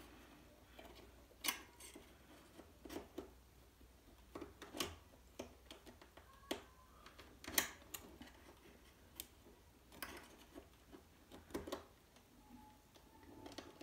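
Faint, irregular small clicks and taps of a Torx T10 screwdriver and tweezers working a display-mounting screw out of an iMac's aluminium frame.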